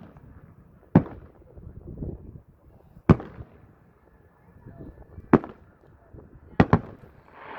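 Aerial fireworks shells bursting: five sharp bangs a second or two apart, the last two in quick succession near the end.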